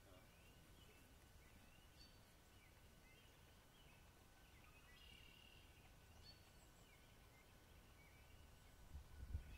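Near silence: faint outdoor ambience with distant high chirping calls repeating every second or so, and a brief low rumble near the end.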